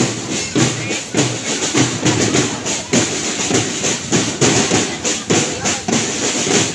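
A drum beating a steady marching rhythm, about two beats a second, for a procession of marchers.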